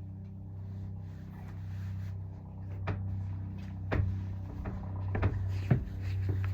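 A handful of short knocks and clicks, like things being handled and set down, over a steady low hum.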